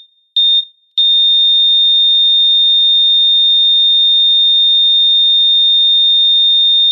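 Heart-monitor sound effect: a high-pitched electronic beep pulsing about every two-thirds of a second, then about a second in a single unbroken tone. This is the flatline that signals the heart has stopped.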